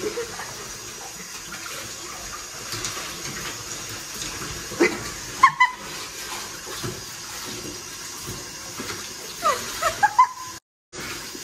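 Short, high whimpers from a golden retriever, a couple about five seconds in and a quick run of them near the end, over a steady hiss.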